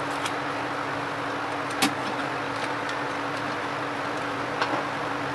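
Steady hiss of a small fan or blower with a low hum, and a few light clicks of handled tools, the loudest about two seconds in.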